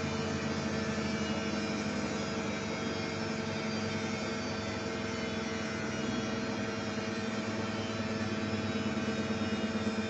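Samsung front-loading washing machine on its high-speed spin, the drum and motor giving a steady hum and whine. Near the end a rhythmic pulsing sets in.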